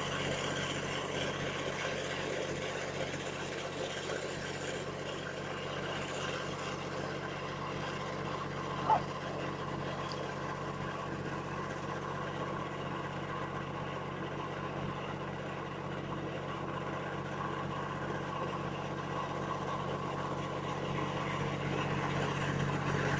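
An engine running steadily, a low even hum, with one brief high yip about nine seconds in.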